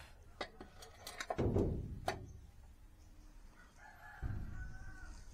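A rooster crowing once, a pitched call of about a second starting about four seconds in. Before it come a few sharp clicks and a loud low thump about a second and a half in.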